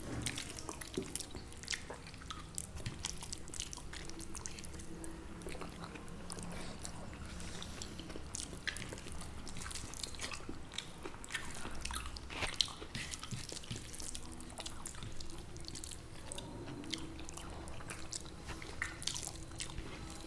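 Close-miked eating sounds: people chewing with many small, irregular mouth clicks and smacks.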